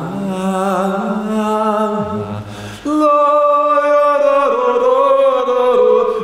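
Music: chant-like vocal chords of long held notes, shifting chord now and then, stepping up louder and higher about three seconds in.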